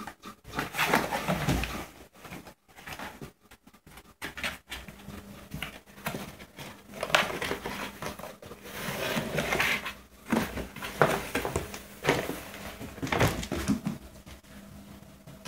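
Bengal cat scrambling on and inside cardboard boxes: irregular scrapes, rustles and knocks of paws and body against the cardboard, dying down near the end.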